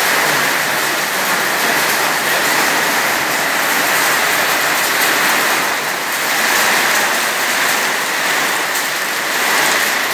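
Heavy rain pouring steadily onto a concrete courtyard, a dense even hiss with slight swells.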